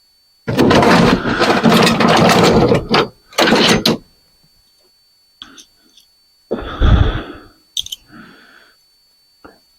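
Metal hand tools rattling and scraping as a tool bin or drawer is rummaged through: a long clatter, a shorter one, then scattered clicks and a loud clunk about seven seconds in.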